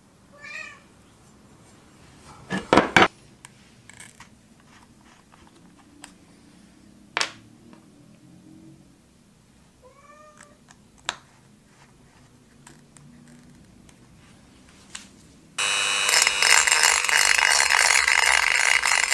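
Clicks and knocks of a small rotary tool and its accessories being handled on a bench, with two short meow-like cries. About three-quarters of the way through, the rotary tool switches on and runs at high speed with a steady high whine as its sanding drum works the brass.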